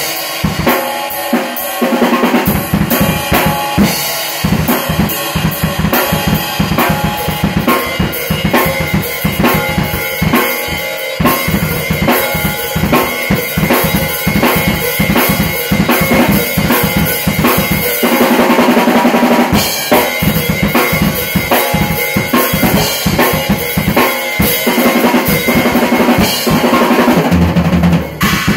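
Acoustic drum kit played solo: a fast, busy groove of bass drum, snare and cymbals, struck continuously.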